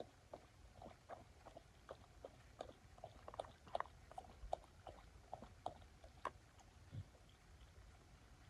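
A person chewing food close to the microphone: faint, irregular mouth clicks and smacks, a few each second.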